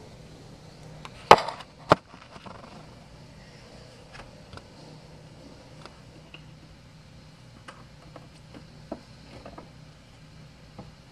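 Two sharp knocks about half a second apart, the first the louder, then faint scattered taps and clicks.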